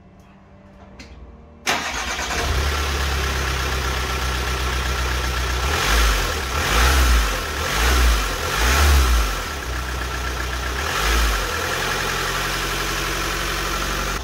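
Volkswagen Crafter's freshly fitted 2.0 turbo-diesel engine starting abruptly about two seconds in, then idling with the bonnet open. It is revved four times in quick succession in the middle and once more a little later, then settles back to a steady idle.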